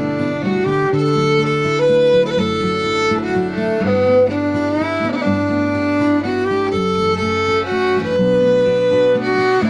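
Background music: a fiddle playing a slow melody with sliding notes over sustained lower string accompaniment.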